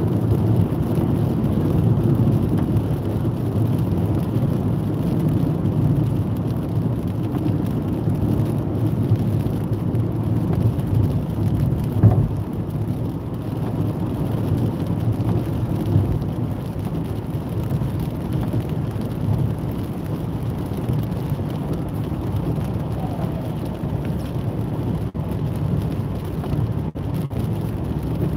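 Steady road noise inside a car driving on a wet motorway: tyres on wet asphalt and the car's running drone, with one short knock about 12 seconds in.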